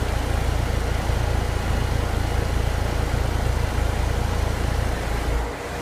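Ruud 2.5-ton air conditioner condenser unit running steadily, its fan and compressor giving a heavy low rumble with a faint steady hum above it; the unit is running again after its leaking coil was repaired and the system recharged. The low rumble drops away sharply near the end.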